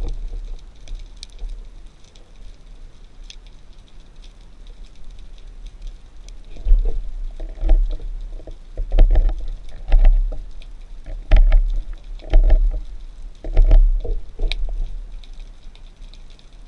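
Water sounds picked up underwater: a regular series of low swishing surges, about one a second, with a few sharp clicks, starting about halfway through.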